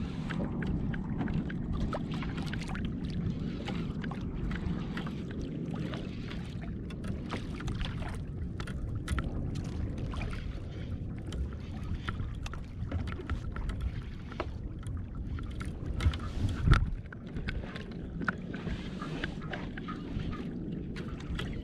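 Water lapping and splashing against a kayak's hull with wind on the microphone, scattered small clicks and knocks throughout and one louder knock about 17 seconds in.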